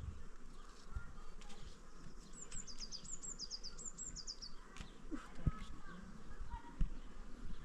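A small bird singing a quick run of high notes, each sliding downward, about two seconds in and lasting around two seconds, over a faint background hum. A couple of sharp knocks come later.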